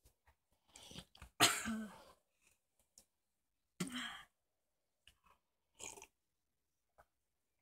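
A person gagging and coughing from a mouthful of cinnamon powder in short, separate bursts. The loudest comes about a second and a half in, another just before the middle, and softer ones follow.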